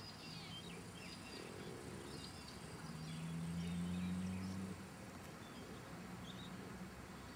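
Outdoor ambience with birds chirping in short calls, and a low steady buzz that swells about three seconds in and lasts nearly two seconds.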